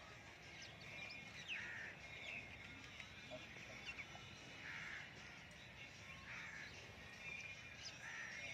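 Faint bird calls, about six short calls repeating every second or so over a low outdoor background noise.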